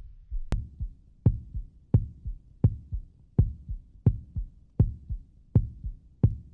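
Heartbeat sound effect: a steady double thump, a strong beat followed closely by a softer one, repeating a little under one and a half times a second.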